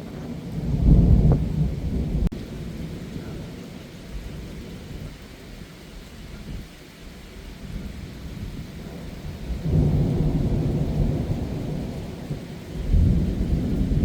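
Thunder during a heavy downpour. A loud low peal about a second in rolls away slowly, rumbling builds again at about ten seconds, and another peal comes near the end, all over steady rain.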